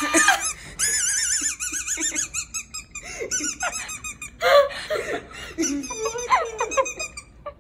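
A teenage boy laughing with a swallowed dog-toy squeaker in his throat, so each breath comes out as a high, wavering squeak, over and over. Other people's laughter joins in about halfway through.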